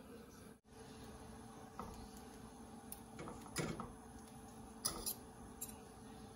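Metal forks scraping and tapping against a nonstick wok as stir-fried rice vermicelli is tossed: a few light clicks and scrapes over a faint steady hum.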